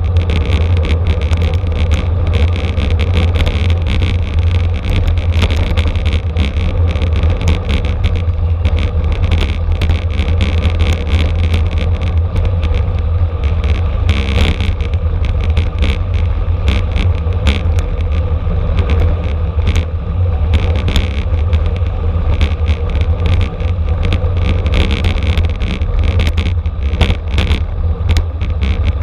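Steady wind rumble on the microphone of a bicycle-mounted camera, with road noise and frequent small rattles and clicks from the bike and mount over the pavement.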